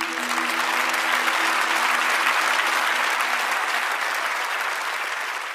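Audience applauding at the end of a live worship song recording, over the song's last held chord, which dies away in the first two seconds; the applause eases off near the end.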